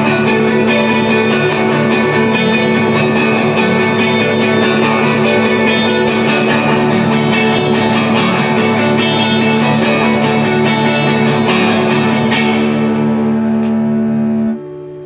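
Background music: a guitar instrumental of layered plucked and strummed guitars, which cuts off shortly before the end.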